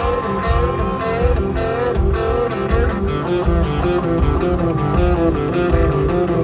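Live country band playing an instrumental passage, with electric guitar over bass and drums on a steady beat.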